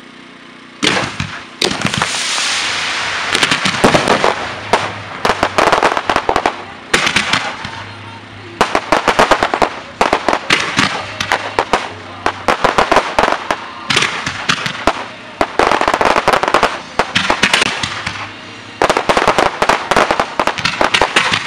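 Fireworks display firing. After about a second of quiet, dense volleys of rapid bangs and crackling begin, coming in waves every few seconds.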